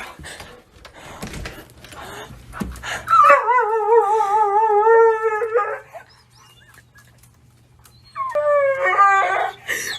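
A dog howling: one long wavering howl lasting about two and a half seconds, starting about three seconds in, then a shorter howl near the end. Scuffling noise comes before the first howl.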